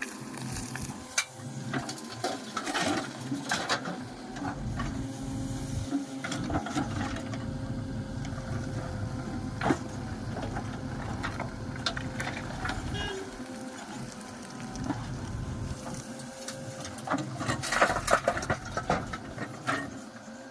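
Diesel engines of a backhoe loader and tractor running steadily, with scattered knocks and clatter and a louder cluster of them near the end.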